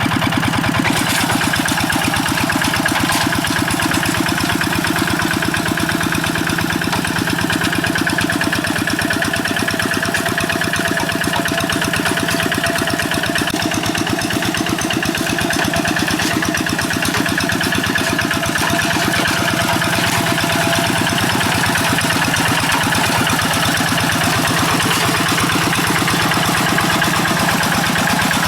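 Kubota RD85DI-2S single-cylinder diesel engine of a two-wheel hand tractor, running steadily at an even speed.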